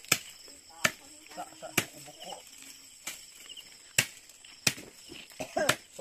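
Sharp cutting strokes, roughly one a second, as grass stems are chopped by hand, over steady cricket chirring.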